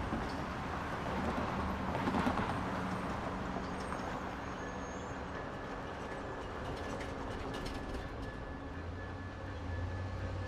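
EMD DE30AC diesel-electric locomotive running with its train in the station, a steady rumble whose low engine hum grows louder about nine seconds in as the train starts to depart.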